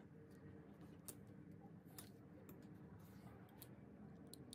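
Near silence: a faint room hum with a few small, scattered clicks.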